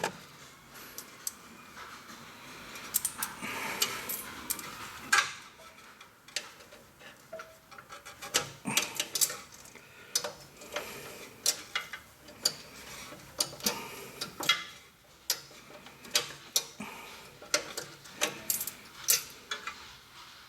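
Irregular metallic clicks and clinks as a parking brake cable's end is worked into the parking brake lever at a rear drum brake.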